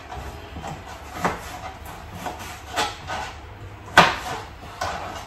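Kitchen knife cutting pork chops on a plastic chopping board: a few irregular knocks of the blade striking the board, the loudest about four seconds in.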